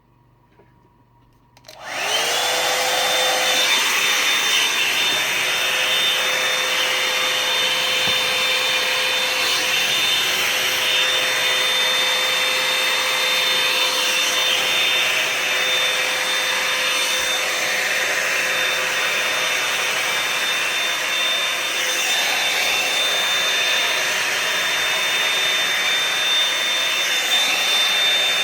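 Revlon One-Step hair dryer brush switched on about two seconds in, its motor spinning up quickly to a steady high whine over a loud rush of air, then running steadily.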